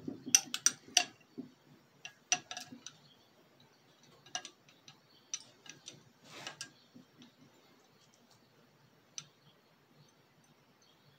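Glassware giving irregular sharp clicks and clinks: a quick cluster in the first second, a few more about two seconds in, then scattered single ticks that thin out toward the end.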